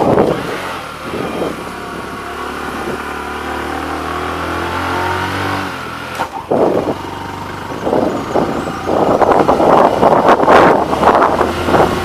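Motorcycle engine running steadily under load on an uphill ride, heard most clearly in the first half. Wind buffeting on the microphone grows loud in the second half.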